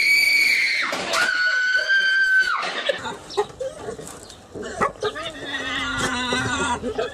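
Two long, high, held screams from a person, then a pig squealing in wavering cries as it is grabbed and held.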